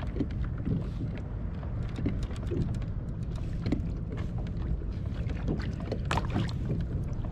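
Wind rumbling on an action camera's microphone aboard a drifting plastic fishing kayak, with scattered small knocks and ticks and one louder brief rush of noise about six seconds in.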